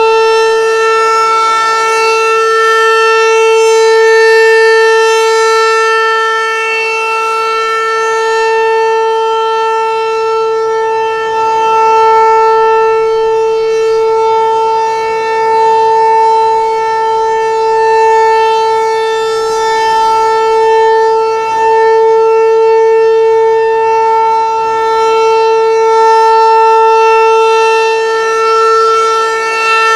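Federal Signal 508 outdoor warning siren sounding the Alert signal: one steady, unchanging tone, loud and rich in overtones, that swells and fades in loudness every few seconds.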